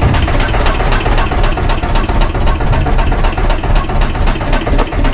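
A fishing boat's inboard engine running steadily at low speed with an even, rapid beat, while the gill net is hauled in.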